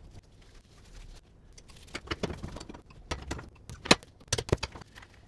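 Scattered metallic clinks and knocks as a motorcycle brake caliper and hand tools are handled at a bench vise during reassembly, the loudest knock about four seconds in.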